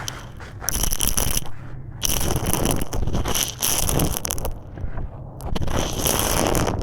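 Crumbly concrete being crushed and breaking apart, a crackling, gritty crunch in three bursts with short lulls between.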